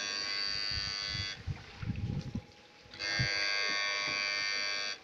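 Electric fish-shocker (Susan 1030SMP setrum ikan) running, a steady high-pitched electronic buzz; it cuts off about a second and a half in and starts again at about three seconds.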